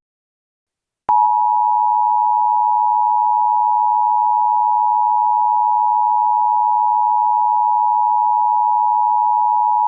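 Emergency Alert System attention signal: after about a second of silence, a loud, steady two-note tone (853 and 960 Hz sounded together) comes on and holds without a break, the signal that an alert message is about to follow.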